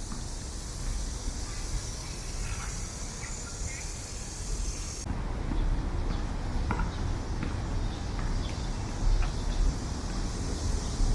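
Outdoor ambience: a steady high hiss with scattered short chirps, changing abruptly about five seconds in to a lower rumble with scattered clicks.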